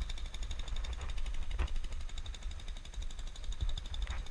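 Wind buffeting an action camera's microphone, an unsteady low rumble, with a faint fast ticking over it.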